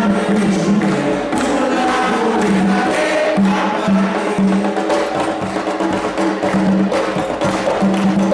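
Music with a percussion beat of sharp, wood-block-like knocks over long held low notes.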